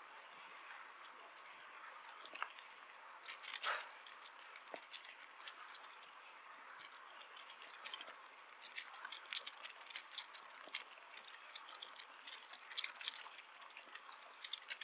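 Bicycle being ridden, with irregular clicking and rattling throughout over a steady hiss.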